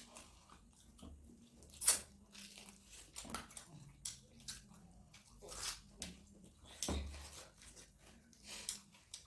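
Close-up eating sounds: chewing and biting, with scattered wet smacks and clicks and a louder crunch about two seconds in.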